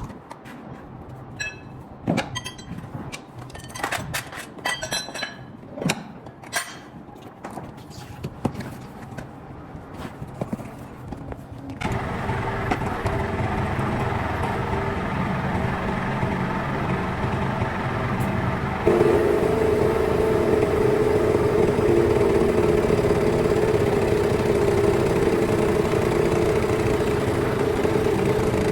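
Scattered sharp clinks and knocks, then an engine starts abruptly about twelve seconds in and runs steadily. About seven seconds later it steps up louder and holds there.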